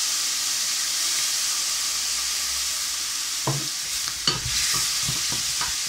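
Chicken bones and vegetables frying in a stainless steel stockpot just after soy sauce has been added, a steady sizzle while they are stirred. From about three and a half seconds in come a few short knocks against the pot.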